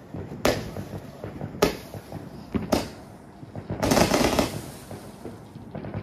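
Fireworks going off: three sharp bangs about a second apart, then a longer, louder burst about four seconds in.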